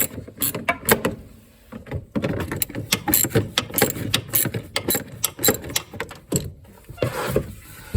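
Socket ratchet wrench clicking in quick runs while bolts are worked loose, with a short pause about a second in.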